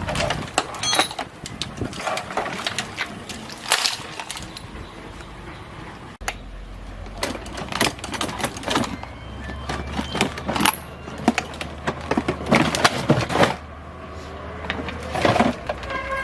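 Irregular knocking and clattering, many sharp strikes in uneven clusters, over a low steady hum through the middle.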